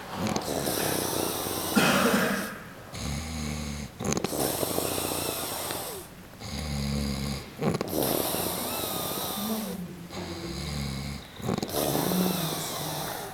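A sleeping man snoring in a steady cycle about every three and a half seconds: a low fluttering snore, three times, alternating with long noisy breaths.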